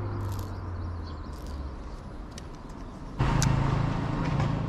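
Motor vehicle traffic close by: a low engine hum fades away, then about three seconds in a louder vehicle comes through suddenly.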